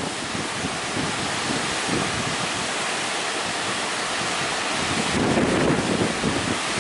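Strong wind buffeting the microphone over the steady rush of breaking surf; the gusts grow louder about five seconds in.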